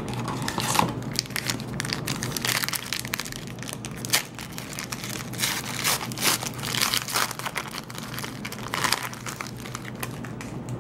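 Foil wrapper of a Panini Marquee basketball card pack being torn open and crinkled by hand: a continuous run of irregular sharp crackles and rustles.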